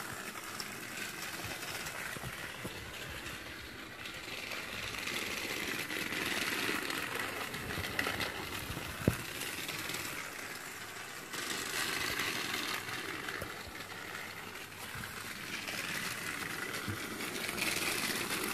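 Battery-powered TrackMaster Emily toy train's small electric motor whirring as the engine runs along its plastic track, the sound swelling and fading as it goes round. A single sharp click about nine seconds in.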